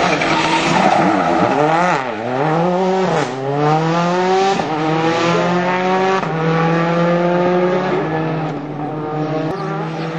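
Ford Focus WRC rally car's engine, its revs falling and picking up twice as it brakes and changes down for the corner, then climbing steadily through several upshifts as it accelerates away.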